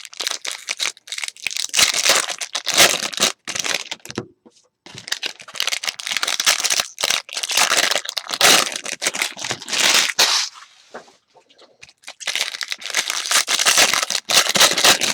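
Baseball card packs being opened by hand: wrappers tearing and crinkling, with rustling and clicking as the cards are handled, broken by two short pauses.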